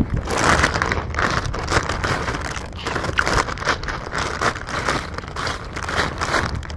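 Crinkly plastic snack bag rustling and crackling as a hand rummages inside it for a snack.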